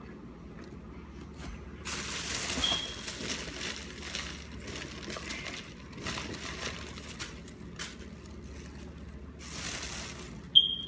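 Chewing mouthfuls of microwaved cornstarch chunks, with irregular crunchy crackles between quieter moments. The strongest bites come about two seconds in and again near the end.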